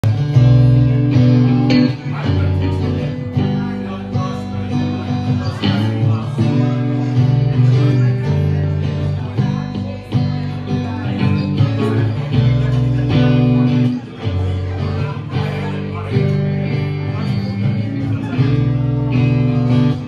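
Live rock band playing: electric guitars and bass over a drum kit, with a steady beat and changing bass notes.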